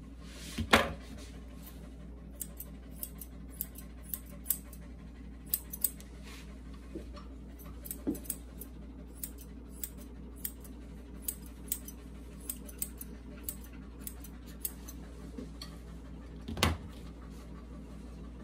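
Grooming scissors snipping a toy poodle's face hair: sharp, irregular clicks, about one or two a second, over a low steady hum, with a louder knock about a second in and another near the end.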